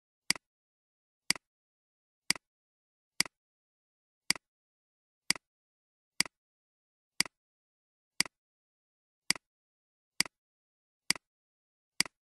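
Computer mouse button clicked about once a second, thirteen times, each click a sharp press followed by a softer release tick, turning pages one at a time.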